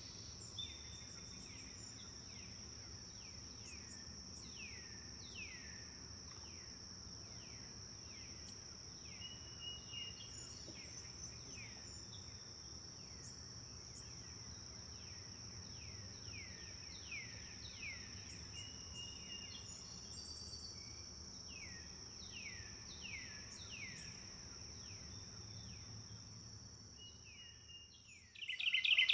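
Forest birds calling: many repeated chirps that sweep downward in pitch, with a few short whistles, over a steady high-pitched insect drone. The sound fades away near the end, then a sudden louder bird call breaks in.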